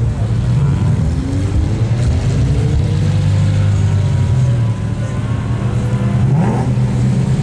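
Car engines running in a slow-moving queue, a steady low drone. One engine rises slowly in pitch over the first few seconds as it pulls forward, and another gives a short quick rev about six seconds in.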